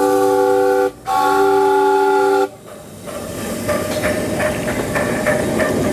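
Live steam locomotive's whistle sounding a chord of several notes at once in two blasts, a short one cut off about a second in and a longer one of about a second and a half. The engine then rolls forward with hissing steam and light clicking.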